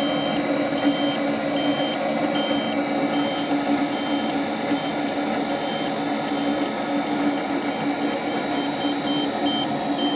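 TopTes PT199 combustible gas leak detector beeping repeatedly, about two beeps a second, quickening near the end: its alarm for combustible gas picked up at the furnace gas valve and manifold. Underneath is the steady hum of the running gas furnace.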